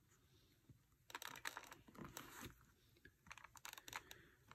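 Near silence with faint rustling and small clicks in short clusters, from fingers pressing and handling the padded lining inside a motorcycle helmet's chin guard while fitting a microphone.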